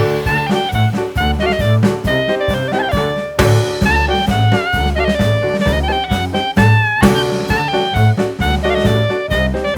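Jazz music with a saxophone melody over a bass line and drum kit, playing at a steady swing beat.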